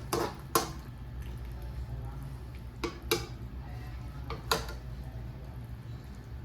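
A utensil knocking against a cooking pot several times, in loose pairs, with a steady low hum underneath.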